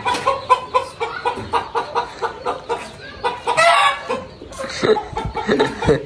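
Chicken clucking in a steady run of short calls, about three or four a second, then a louder, rougher burst about three and a half seconds in.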